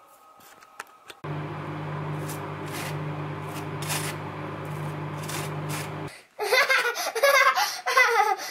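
A table knife scraping across dry toast in short strokes over a steady low hum, which both stop abruptly; then, about six seconds in, a small child laughing hard in loud bursts while being tickled.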